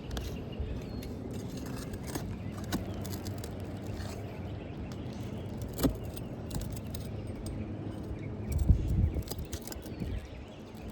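Light scattered clicks and scrapes from hands and tools working on asphalt roof shingles, with one sharper click about six seconds in and a brief low rumble about nine seconds in.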